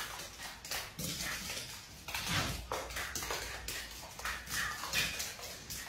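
A dog and a cat scuffling: an irregular run of short knocks and scrabbling thumps, a few a second.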